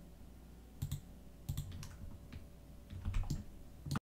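Irregular clicks of a computer mouse and keyboard, a dozen or so and often in pairs, with soft low thumps on the desk. The sound cuts off suddenly a little before the end.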